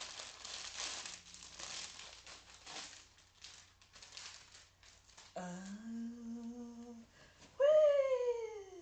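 Plastic packaging crinkling and rustling as a parcel is opened. Then a woman hums a steady note, and near the end a louder vocal note slides down in pitch.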